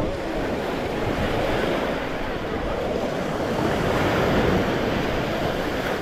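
Small waves washing onto a sandy beach, a steady rush that swells about four seconds in, with wind buffeting the microphone.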